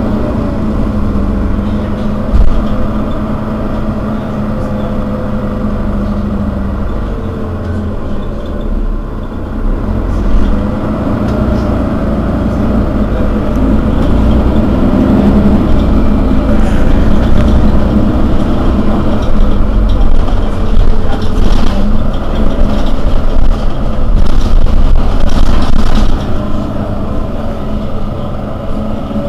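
Mercedes-Benz Citaro city bus idling at a stop, a steady low engine drone with a held hum. It gets louder from about halfway through and eases off near the end.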